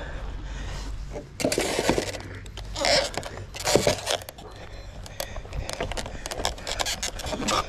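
A white vinyl railing section being picked up and carried: irregular knocks, rattles and scrapes, loudest in short bursts about one and a half, three and four seconds in, then many small clicks.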